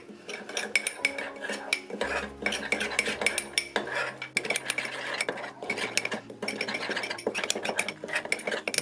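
Metal spoon stirring a thick spice paste in a small bowl, scraping and clicking against the bowl's sides and bottom in quick, irregular strokes.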